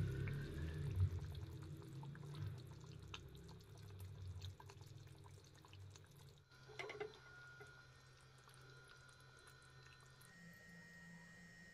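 Thick curry gravy squelching and dripping as a steel ladle stirs and lifts mutton pieces in a pan, with small wet clicks over a low rumble, fading away about halfway through. A brief sound about seven seconds in, then only a faint steady hum.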